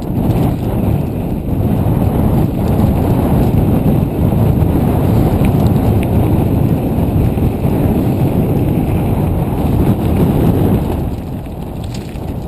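Loud wind and riding rumble buffeting the camera microphone on a moving mountain bike, with a few faint clicks and rattles. It eases off about eleven seconds in.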